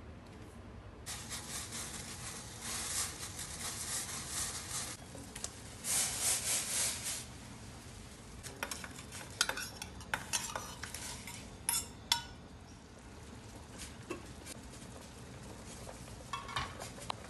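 Cooking sounds at a gas stove: a rustling hiss for several seconds, then a run of sharp metal clinks of a utensil against a small stainless-steel saucepan of boiling liquid, with a few more clinks near the end.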